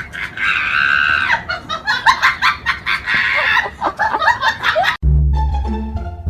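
Loud, rapid, repeated shrieking cries for about five seconds, then a sudden cut to music with plucked bass and cello.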